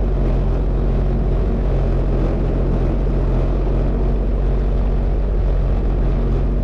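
Sea-Doo Fish Pro jet ski engine running steadily underway, a constant low drone with a rushing hiss over it.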